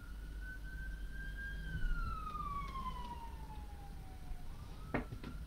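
A faint wailing siren: one long tone that holds high, slowly falls, then rises again near the end. Two short clicks about five seconds in.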